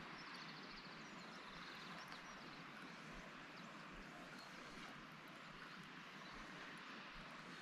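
Near silence: a faint steady hiss of outdoor ambience, with a brief faint bird trill about half a second in.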